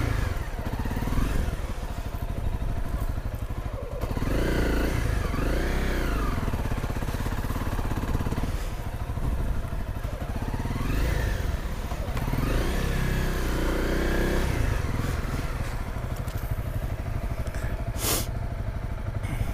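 Honda CRF250L's single-cylinder four-stroke engine revving up and falling back again and again as the dual-sport bike is ridden slowly through mud. A single sharp click sounds near the end.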